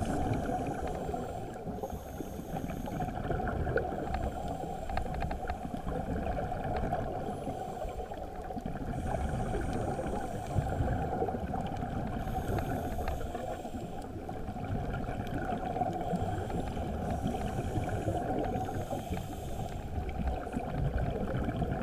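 Scuba diver's regulator breathing heard underwater through a camera housing: a steady, muffled low rush of water, with a faint high hiss lasting about a second every few seconds.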